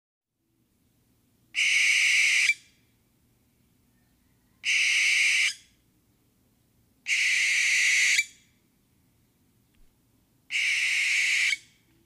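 Owl calling: four harsh, hissing screeches, each about a second long, roughly three seconds apart.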